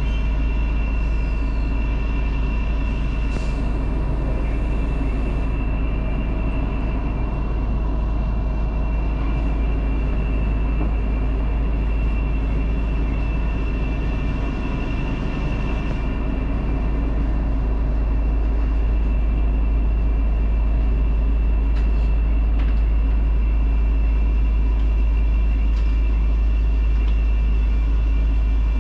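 Keifuku Electric Railroad (Randen) tram running along the track: a steady low rumble with a constant high whine, picked up at the front of the car, growing a little louder about halfway through.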